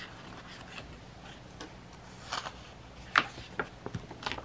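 Paper sticker sheets being shuffled and flipped over by hand: a few short rustles and light taps, most of them in the second half.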